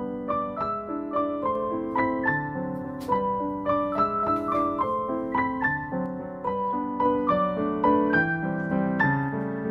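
Background piano music: a flowing melody of single notes, a few each second, over a lower accompaniment.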